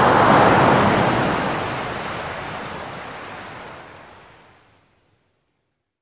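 Surf: a wash of breaking waves that swells in at the start and fades away over about five seconds, then stops dead into silence for the last second.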